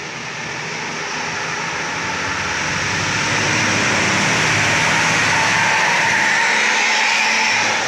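Mercedes-Benz coach bus coming around a bend and driving close past, its engine and tyre noise growing steadily louder and loudest as it goes by, then cutting off suddenly near the end.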